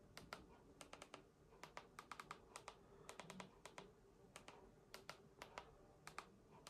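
Faint, quick clicks of a Sony TV remote control's buttons, about thirty presses in irregular rapid runs as the selection is stepped across an on-screen keyboard.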